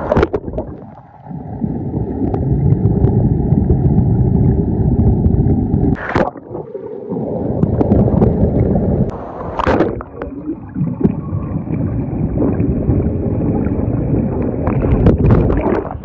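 Muffled rushing and bubbling of water in a waterfall's plunge pool, heard through an action camera held underwater. The noise sits low and dull, with sudden breaks a few times, about 6 and 10 seconds in.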